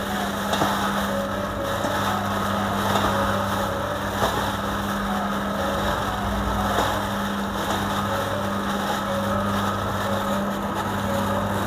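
A steady low mechanical hum, with the faint rustle and squish of a plastic-bag-covered hand tossing shredded chicken, lemon slices and sauce in a stainless steel bowl.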